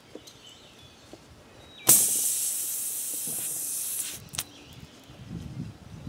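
Air hissing out of a lawn tractor tire through the puncture as the plug insertion tool is worked in the hole: a sudden loud hiss about two seconds in that lasts about two seconds, easing slightly, then cuts off. Escaping air is the sign that the hole is not yet sealed by the plug. A few light clicks and handling knocks follow.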